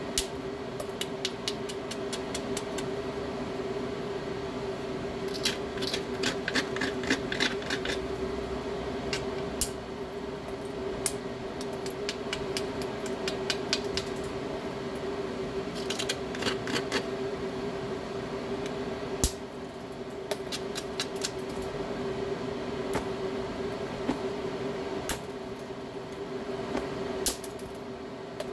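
A hammerstone working the edge of a stone biface: short bursts of rapid, sharp clicking and ticking of stone on stone, with a single harder knock about two-thirds of the way through. A steady hum runs underneath.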